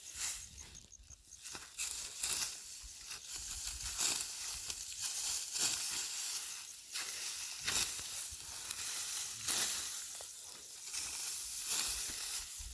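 Dry wheat stalks crunching and rustling in a series of irregular strokes, roughly one or two a second, over a steady dry hiss.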